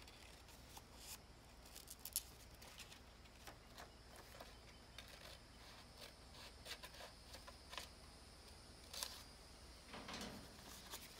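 Faint snips of scissors cutting through folded construction paper, a scattering of short clicks, with a few louder ones near the end.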